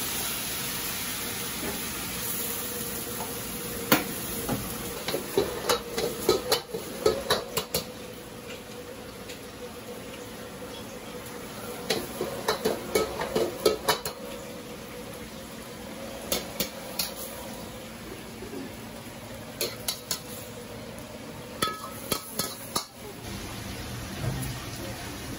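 A metal ladle clanking and scraping against a wok in quick clusters of strikes as food is stir-fried, over a steady hiss of frying.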